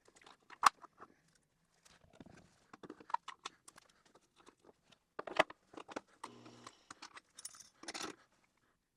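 Scattered clicks, clinks and knocks of metal parts being handled, with a short low hum about six seconds in.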